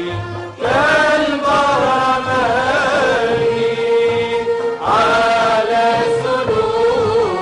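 Background music: a chanted vocal melody with wavering, ornamented held notes over a low, repeating accompaniment. A new sung phrase begins about half a second in and another near five seconds.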